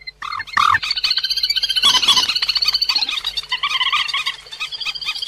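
Bird-trapping lure recording of cuốc biển, a Vietnamese rail of rice paddies, calling: a fast run of sharp, repeated croaking notes that barely pauses at the start and then carries on densely.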